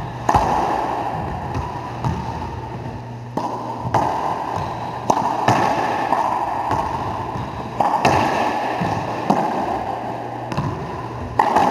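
Racquetball rally: the hollow rubber ball cracking off rackets and the court walls, about ten sharp hits at irregular intervals. Each hit echoes around the enclosed court.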